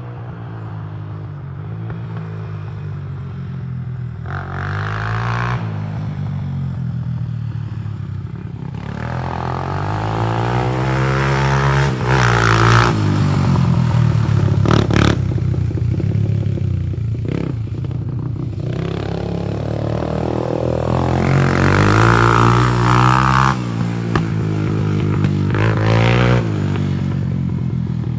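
Honda TRX300EX's single-cylinder four-stroke engine being ridden after a rebuild. It revs up and eases off over and over as the quad accelerates and slows, loudest during two long pulls partway through.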